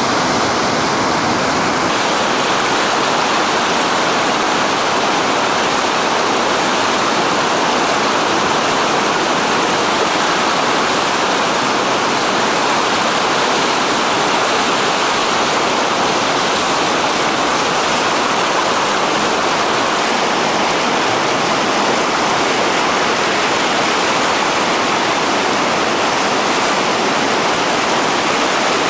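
Whitewater rapids rushing steadily, a continuous loud roar of churning water.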